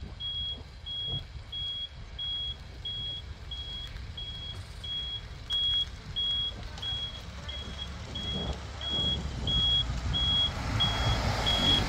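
Ambulance reversing alarm beeping in a steady, even series of high beeps, just under two a second, as the ambulance backs up. Vehicle engine and tyre noise grows louder over the last few seconds.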